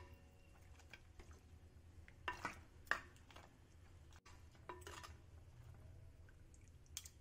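Ladle stirring curry in an earthenware clay pot: a few faint clinks and scrapes of the ladle against the pot, the loudest about three seconds in, over a low steady hum.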